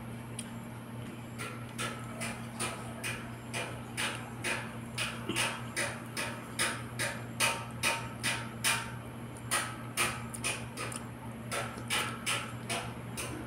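Close-up chewing with wet mouth clicks and lip-smacks, about two or three a second, as a mouthful of soft fish and greens is eaten.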